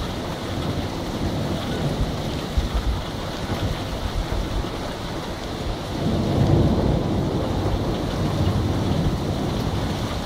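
Thunderstorm: rain falling steadily with thunder rumbling, the rumble swelling about six seconds in.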